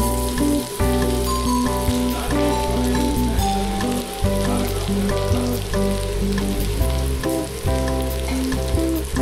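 Chopped ginger and garlic sizzling and crackling in hot oil in a steel pan, under background music with a melody and bass line.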